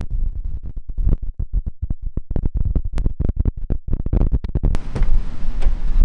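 Wind buffeting the microphone in rapid, irregular thumps and pops. After about five seconds it turns into a steady rush of wind.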